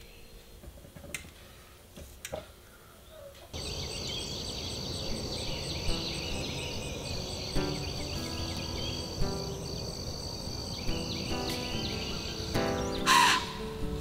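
A few faint clicks, then about three and a half seconds in a dense chorus of insects starts suddenly as a steady high buzzing. Soft music notes join it from about halfway. Near the end a crow caws loudly.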